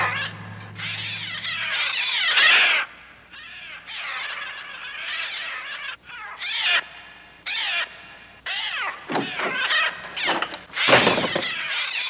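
Film sound effects of a flock of birds shrieking and cawing in a frenzied attack, many overlapping screeches rising and falling in pitch.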